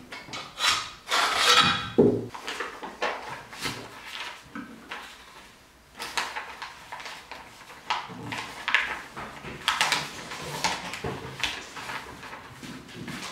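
Handling of a steel cutlass hand guard and hilt parts on a hide, with a knock about two seconds in. After that comes a sheet of paper rustling and crackling as hands fold and crease it.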